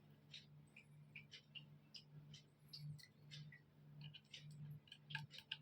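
Faint, irregular small clicks and ticks from fitting a wire into a screw terminal on a ceiling fan's DC circuit board, over a low steady hum.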